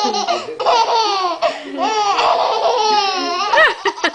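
A baby laughing: a string of high-pitched laughs, the pitch sliding down within each, with short breaks between them.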